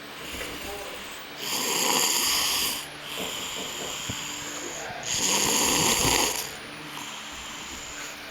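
A person snoring: two loud, drawn-out snores about three and a half seconds apart, with quieter breathing between them.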